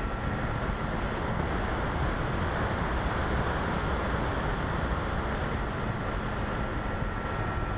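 Steady rush of air over the onboard camera of an Easy Glider RC model in flight, with a thin steady whine underneath that fades in the middle.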